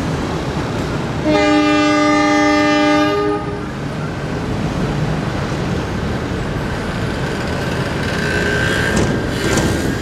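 Diesel-electric locomotive sounding its horn once, a steady chord of several tones lasting about two seconds, starting about a second in, over the low rumble of the engine and wheels as it rolls slowly forward.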